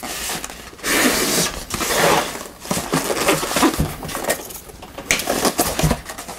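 Polystyrene foam packing pieces being pulled apart and lifted off plastic-wrapped speakers: stretches of foam rubbing and scraping with several light knocks.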